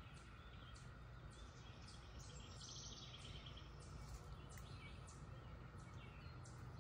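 Faint chorus of cicadas, a steady hum, with short high chirps repeating about twice a second and a brief chattering call a little before the middle.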